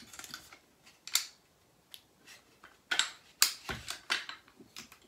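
Metallic clicks and clacks of an AR-15 being worked by hand, its 9 mm upper pivoted on the lower while the FOSTECH trigger is readied. A few scattered clicks, then a busier run of clacks from about three seconds in.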